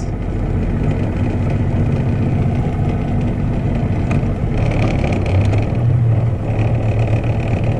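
Small boat's outboard motor running steadily while the skiff moves slowly along.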